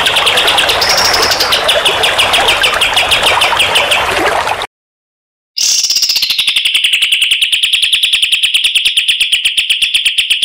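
Recorded songbird song: a fast, even trill of rapidly repeated high notes, cut off by about a second of silence near the middle, then a second, very regular trill.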